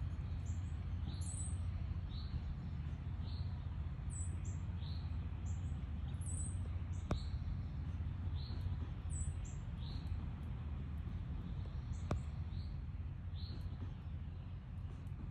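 Backyard birds chirping: a short, high, falling note repeats about once a second, with higher chirps in between. Underneath runs a steady low rumble, and two sharp clicks come about seven and twelve seconds in.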